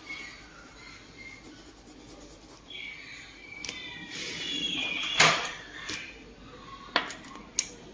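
A few knocks and clatters over a faint background: the loudest, a short clatter, comes about five seconds in, and two sharp clicks follow near the end.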